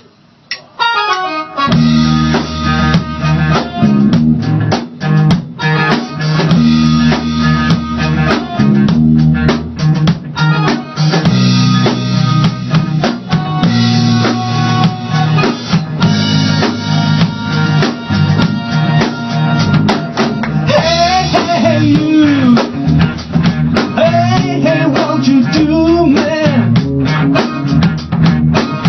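A band playing rock music with drum kit, bass and guitar. The full band comes in about two seconds in and plays steadily after that.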